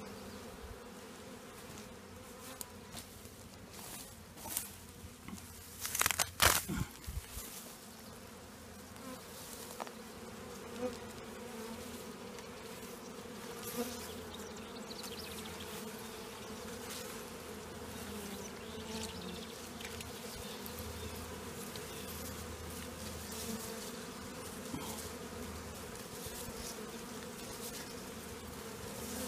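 Honeybees of a freshly hived swarm buzzing steadily around the swarm box, with a brief burst of rustling and clicks about six seconds in.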